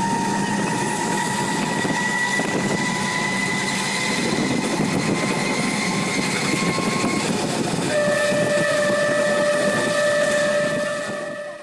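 Passenger train running, heard from an open carriage window: a steady rush and rattle of the moving carriage and wheels. A long steady tone, rising slightly, carries over it through the first seven seconds, and a lower steady tone sounds from about eight seconds in.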